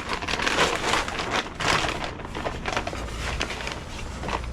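Old bird seed being tipped out of a bird feeder into a wheelie bin: a dense rattling hiss of many small seeds, heaviest in the first two seconds and then thinning to scattered patters.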